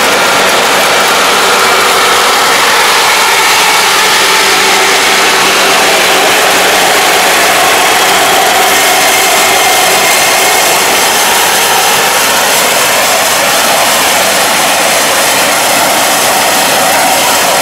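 Kubota ARN460 rice combine running steadily while harvesting, its engine and threshing machinery making a loud, dense, unbroken mechanical din.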